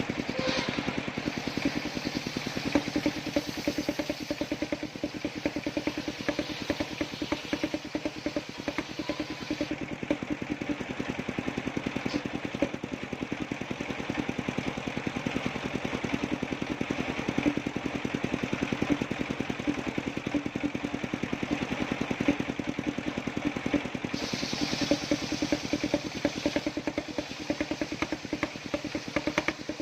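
Engine of a homemade circular sawmill running steadily with a fast, even pulse. A higher hiss above it drops away about ten seconds in and comes back a little after twenty seconds.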